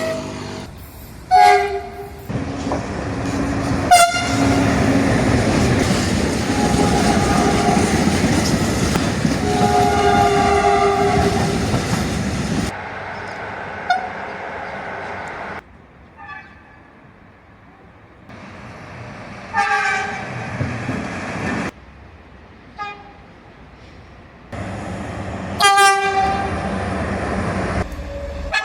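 Train horns: several separate blasts, each a steady chord of two or more notes, some short and some held for a second or two. Through the first half a train runs loudly past with rumbling wheel noise under the horn. The sound cuts abruptly from one clip to the next.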